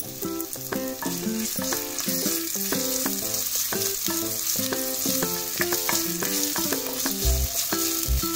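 Chopped garlic and ginger sizzling steadily in hot oil in a nonstick pan, stirred and scraped with a wooden spatula, with a light tune of short notes playing under it.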